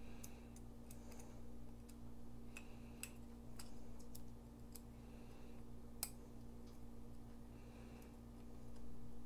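Faint, scattered small clicks of folding-knife parts being handled and fitted during reassembly: a steel liner and G10 handle scale going onto the pivot. The clicks come a few at a time, the sharpest about six seconds in, over a steady low hum.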